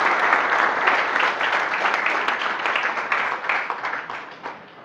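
An audience clapping, dense at first, then thinning to scattered claps and dying away near the end.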